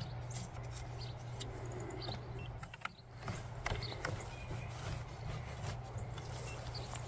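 Scattered light clicks and knocks of an agricultural drone's folding propeller blades and arms being handled and swung into place, over a steady low rumble.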